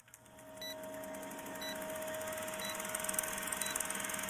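Film-projector countdown sound effect: the rapid, even clatter of a running film projector, fading in over the first second, with a steady hum and a short high beep about once a second.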